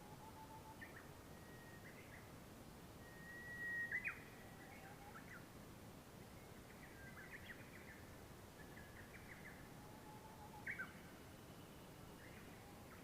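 Faint birds chirping and whistling over a low steady hiss, with short calls throughout and two slightly louder ones about four seconds in and again later on.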